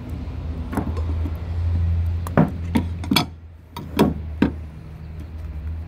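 About six sharp metallic clicks and clinks from hand tools and metal parts being handled while a lawnmower is taken apart, over a steady low rumble.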